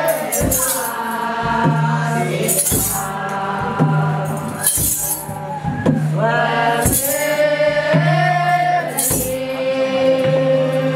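Voices singing a hymn-like melody together, with a jingling shaken percussion instrument struck about every two seconds.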